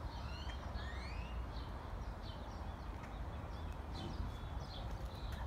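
Birds chirping and calling, with many short notes and quick rising whistles, over a steady low rumble.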